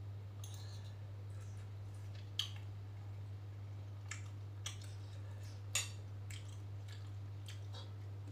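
A metal spoon clinking and scraping on a glass plate while eating, with a few sharp clinks, the loudest about two and a half and six seconds in, and soft chewing sounds between them.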